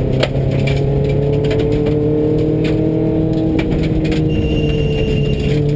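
Subaru rally car's flat-four engine, heard from inside the cabin, pulling steadily at speed, its pitch slowly rising then easing a little near the end. Gravel clicks and clatters against the car throughout.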